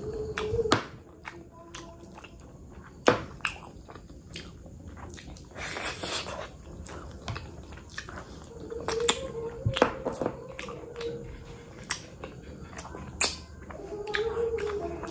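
Close-miked wet chewing and lip-smacking of mutton curry and rice, full of sharp mouth clicks, with a longer slurping suck about six seconds in as meat is sucked off a mutton bone. A few short hummed sounds come near the start, around the middle and near the end.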